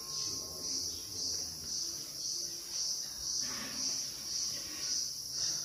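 Evening insect chorus: a high-pitched trill pulsing about twice a second.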